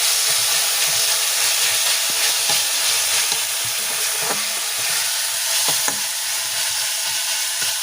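Chopped onion, garlic, ginger and carrot frying in a little refined oil in a pan, sizzling steadily, with a few brief clicks from the pan a little after halfway.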